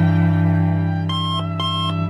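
Sustained low background music, then about a second in a rapid electronic beeping starts, short high beeps repeating about twice a second like an alarm.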